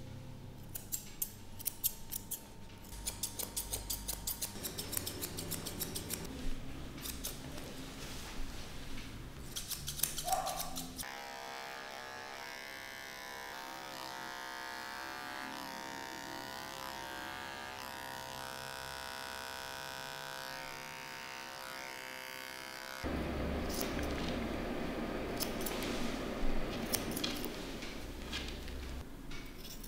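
Grooming scissors snipping through a Yorkshire terrier puppy's coat in quick runs of cuts. About eleven seconds in, an electric pet clipper starts running steadily on the puppy's head for some twelve seconds. It cuts off, and more scissor snips follow, with a rustle of hands working the fur.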